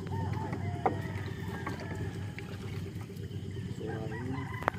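Steady low hum of a boat engine running, with a few short faint calls over it and one sharp click near the end.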